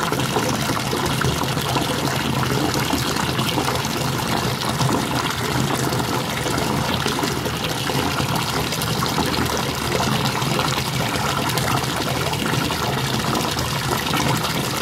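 Water running steadily from the tap into a bathtub, an even rushing that does not change.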